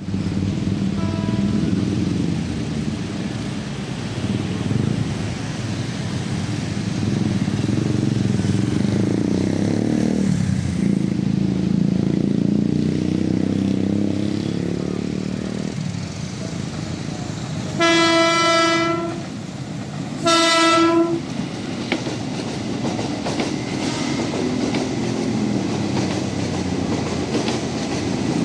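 KRL Commuter Line electric train sounding its horn in two loud blasts, each about a second long and a second apart, some eighteen seconds in. Beneath them is a steady low rumble. A faint short horn note comes about a second in.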